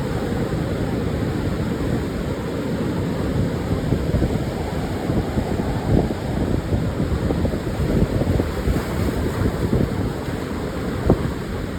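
Pacific surf washing on a wide sandy beach, mixed with wind buffeting the microphone as a steady low rumble. A few short wind thumps come through, about six and eleven seconds in.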